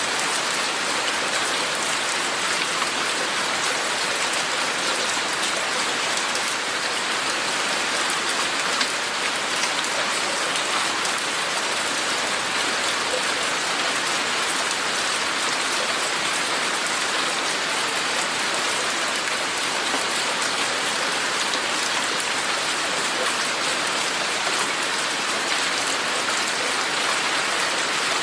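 Steady rain falling, a dense even hiss of drops landing on surfaces.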